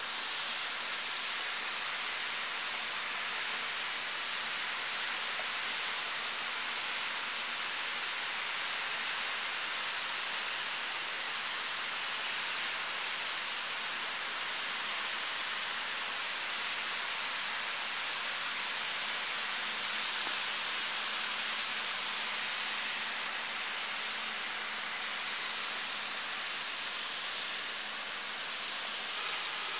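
Snowmaking lance (a pole-mounted snow gun) spraying water and compressed air into a plume of artificial snow: a steady, even hiss with no breaks.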